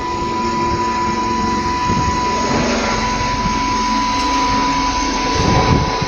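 HVAC chiller plant machinery running steadily: an even rushing noise with a constant high whine and a lower hum.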